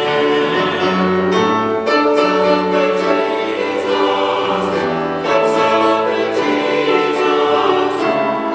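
Church choir singing an anthem in sustained chords, with instrumental accompaniment and a moving bass line.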